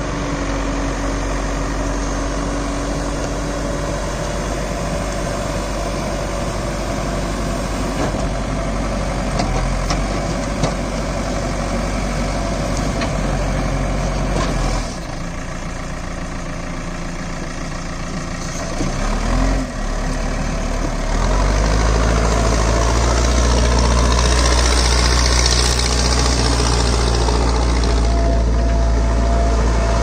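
Manitou Terex TLB-740S backhoe loader's four-cylinder turbocharged Kirloskar diesel engine running while the machine works its loader arm and backhoe. The engine note dips about halfway through, then runs louder and steadier, with a deeper note, for the last third.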